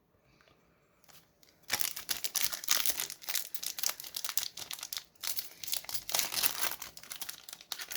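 Foil wrapper of a football card pack crinkling and tearing as it is opened by hand, starting close to two seconds in and going on busily after that.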